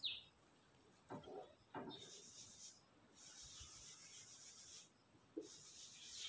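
Faint rubbing of a blackboard eraser wiping chalk lines off a chalkboard, in three passes.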